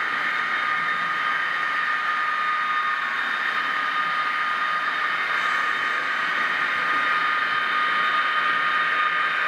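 HO-scale model train running on the layout: the locomotive's small electric motor whines steadily, with a hiss of wheels on the track, growing slightly louder near the end.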